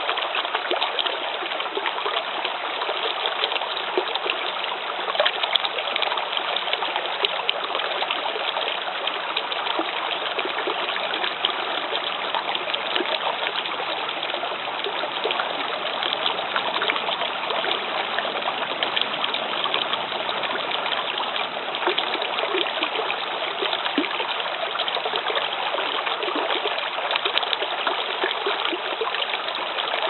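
Babbling brook running over rocks: a steady rush of flowing water flecked with small splashes and gurgles.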